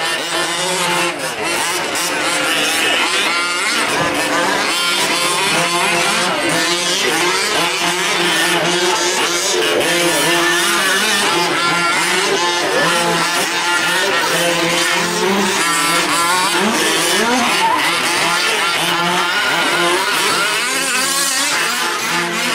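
Several 1/5-scale gas RC trucks racing, their small two-stroke engines revving up and down over one another in a constant rise and fall of pitch.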